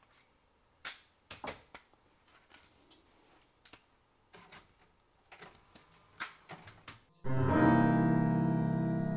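Light plastic clicks and clacks as a CD case and a portable CD stereo are handled. About seven seconds in, music starts suddenly with a held piano-like chord that slowly fades.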